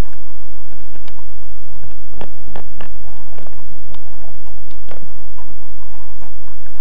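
A cow's tongue licking a dog's coat: a scatter of short wet smacks and clicks, about a dozen, between about one and five seconds in, over a loud steady low hum.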